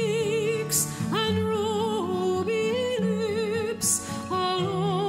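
Background song: a singer holding long notes with vibrato over a steady accompaniment.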